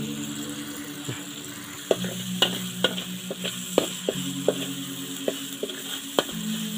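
Ground chili paste sizzling in hot oil in a large aluminium wok, stirred with a metal spatula. From about two seconds in, the spatula clicks and scrapes against the wok about twice a second.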